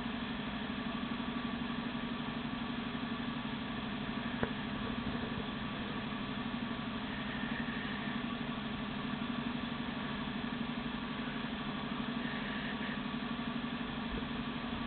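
Steady low mechanical hum like an idling motor, unchanging throughout, with a single faint click about four and a half seconds in.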